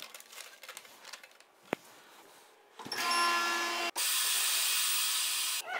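Chamber vacuum sealer running a cycle: a sharp click, then about a second later the machine starts with a humming whine. After about a second this switches abruptly to a loud, steady hiss that cuts off near the end.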